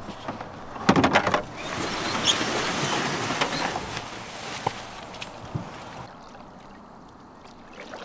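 Metal jon boat being shoved off a brushy bank into the water: a cluster of knocks about a second in, then a couple of seconds of scraping as the hull slides over moss and brush, fading out, with a few faint knocks after.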